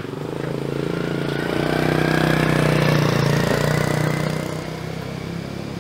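A motor vehicle's engine passes by, growing louder to a peak about three seconds in and then fading, with a whine that slowly rises in pitch.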